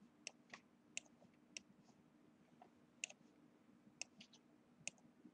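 Faint computer mouse clicks, about ten of them at irregular intervals, over a low steady hum.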